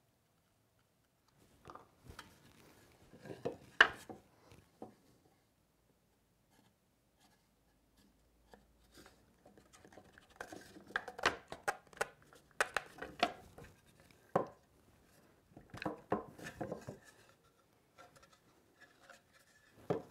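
Mahogany box parts being handled and their glued dovetail joints pushed together by hand: light wooden knocks, clicks and scrapes in scattered clusters, starting about two seconds in, with the sharpest knock near four seconds in.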